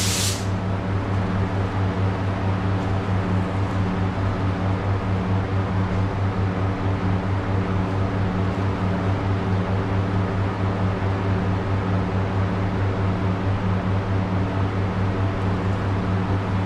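A spray gun's hiss cuts off right at the start, leaving a steady low machine hum that runs on evenly with a slight pulsing.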